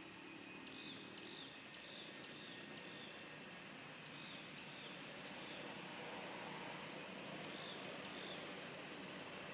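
Faint outdoor insect ambience: a steady high-pitched drone, with short chirps coming in runs of about two a second.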